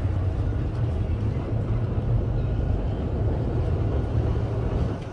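Wind buffeting a smartphone's microphone on the upper deck of a moving heritage double-decker tram, over the tram's running rumble: a steady low rumble with a hiss above it.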